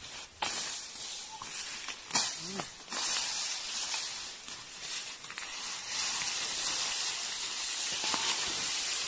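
Bolo slashing through tall, dry talahib grass: a dense, crackly rustle of stalks with several sharp chops in the first three seconds, then steadier rustling.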